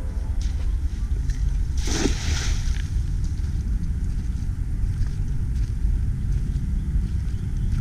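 Wind buffeting the microphone with a steady low rumble. There is a short burst of hissing noise about two seconds in.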